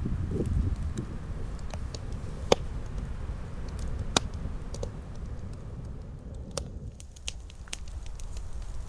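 Low wind rumble with a few scattered sharp clicks and snaps, the loudest two about two and a half and four seconds in.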